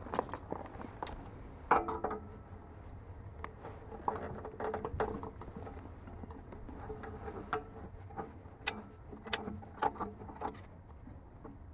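Scattered light metal clicks and knocks of large slip-joint pliers being set on and adjusted around a fitting on a steel air-compressor tank.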